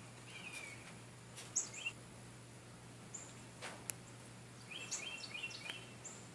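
Small birds chirping: short, high chirps scattered here and there, with a quick run of several chirps about five seconds in. A single sharp click just before four seconds, over a faint steady low hum.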